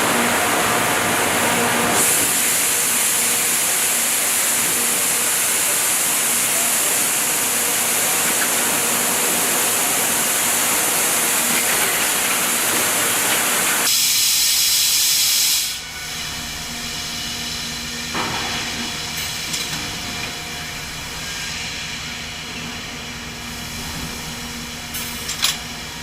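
Loud steady hiss that cuts off about sixteen seconds in, leaving a quieter machine hum with a few scattered clicks.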